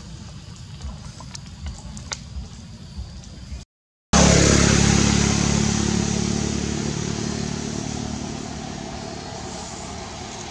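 A motor vehicle's engine running close by. It cuts in loud after a brief gap in the sound about four seconds in, then fades slowly. Before the gap there is only a low rumble with small clicks and rustles.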